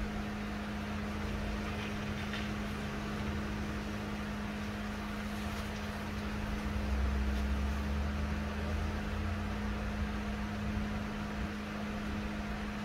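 Steady hum of a running fan motor, with a deeper rumble that swells for a couple of seconds past the middle.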